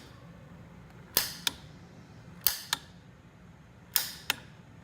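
Piezo igniter on a gas water heater's control valve being pressed repeatedly to spark the pilot. Three times, each press gives a sharp snap followed by a softer click about a third of a second later.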